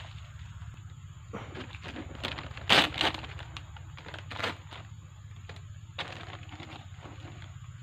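Hands working a wooden stingless-bee hive box: a plastic cover sheet crackling and wooden box parts knocking, with two louder knocks close together about three seconds in.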